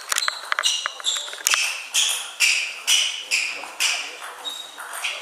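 Table tennis doubles rally: the celluloid ball clicks off bats and table in quick succession, about two strikes a second, ringing in a big hall. Players' shoes squeak on the sports floor alongside the hits.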